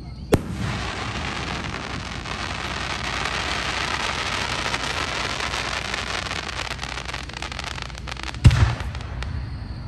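Fireworks: a sharp bang just after the start, then a dense crackle of many small pops that swells and fades for about eight seconds. A loud deep boom comes near the end.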